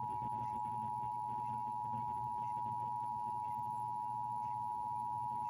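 Emergency Alert System attention signal: a steady two-tone alarm of two close pitches sounded together, held without a break. It announces that an emergency alert message follows, here a test of the system.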